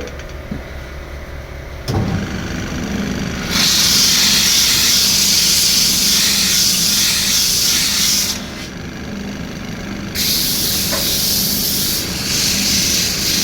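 CNC turning lathe running with a steady hum, a knock about two seconds in, then a loud hiss that switches on about three and a half seconds in, stops briefly around eight seconds and starts again about ten seconds in.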